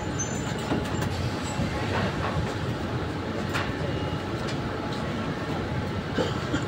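Mumbai suburban electric local train running slowly on the rails: a steady rolling noise of wheels on track, with a few sharp clicks scattered through it.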